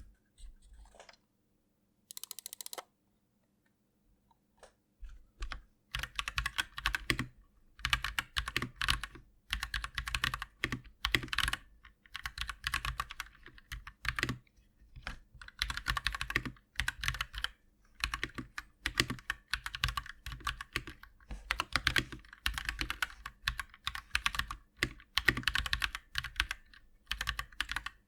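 Typing on a KT87 mechanical keyboard with FL.CMMK Pink switches: fast runs of key clacks in bursts with short pauses, starting about five seconds in, after a brief burst of noise about two seconds in.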